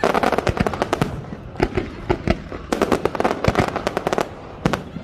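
Aerial fireworks going off: rapid volleys of sharp bangs and crackles in three or four dense clusters, with short lulls between them.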